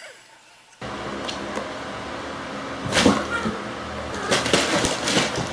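Domestic cat sounds over steady background noise, with a sudden loud sound about three seconds in and a few sharp knocks shortly after.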